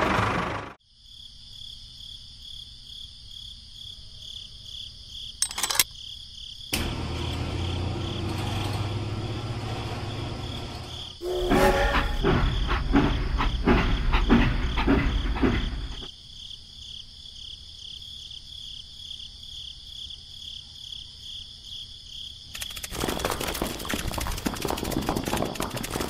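A motor running stops abruptly under a second in, leaving insects trilling steadily. Louder stretches of low mechanical running and clattering come and go in the middle, and a rougher noise near the end.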